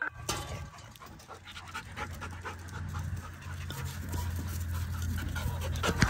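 A dog panting in quick, even breaths over a steady low hum.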